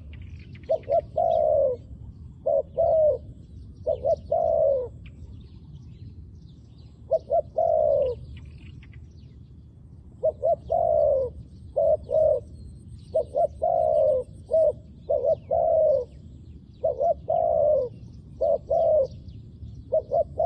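Zebra dove cooing over and over in quick groups of short notes, many ending in a longer falling coo. This is a decoy dove calling to draw wild doves. Faint chirps of small birds sound in the background.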